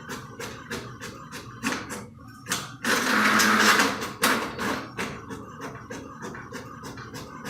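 Inkjet printer running: rapid, regular clicking, about five clicks a second, with a louder burst of whirring about three seconds in.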